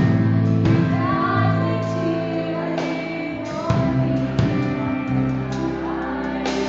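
Live worship music from a band: singing into a microphone over sustained keyboard chords, with repeated percussive hits.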